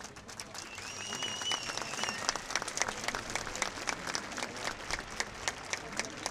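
Crowd applauding in the open air, with a whistle from the crowd lasting about a second near the start. The clapping grows denser after about two seconds.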